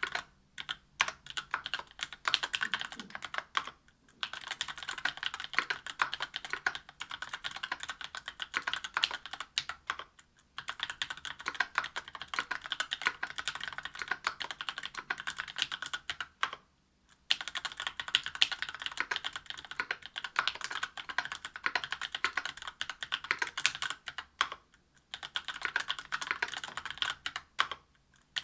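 Fast continuous typing on a mechanical keyboard fitted with stock, unlubricated Tecsee Oreo 63.5 g linear switches, in an aluminium plate with GMK keycaps. Rapid clacks, broken by brief pauses every several seconds.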